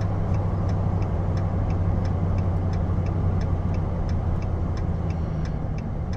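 Steady low engine and road drone heard from inside a vehicle's cab, with the turn-signal indicator ticking evenly, about three ticks a second, as the vehicle approaches a turn.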